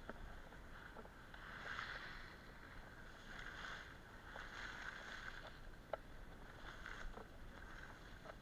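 Skis swishing and scraping over packed snow, the sound swelling and fading with each turn every second or two, with a few sharp clicks, the loudest about six seconds in.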